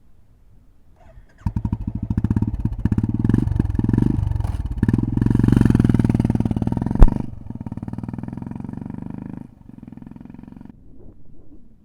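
Royal Enfield Classic 350 single-cylinder engine running through a K-Indori aftermarket silencer. It comes in loud about a second and a half in with rapid exhaust pulses and swells up. A sharp crack comes about seven seconds in, then the engine drops back lower and fades near the end.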